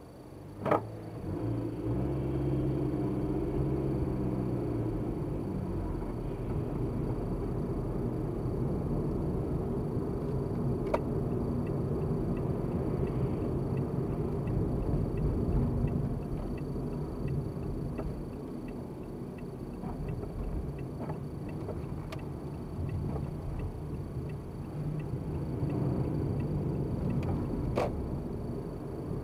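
Car engine and road noise heard inside the cabin as the car pulls away from a stop. The engine note climbs over the first few seconds, then settles into a steady low rumble of driving. A sharp click comes just before it moves off.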